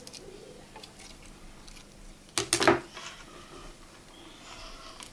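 Small metal clicks and taps from prying the metal back plate off an iPhone 6S screen, with a quick cluster of sharp clicks about two and a half seconds in and faint ticks around it.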